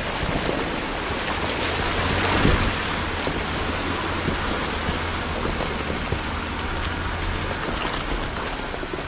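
2021 Jeep Gladiator Rubicon driving a slick, muddy off-road trail: a steady low engine drone under an even rushing hiss of tyres and mud, swelling briefly a couple of seconds in.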